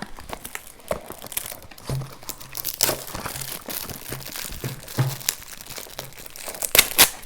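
Gift wrapping being crumpled and torn open by hand: an irregular crackling rustle, with a few louder sharp rips near the end.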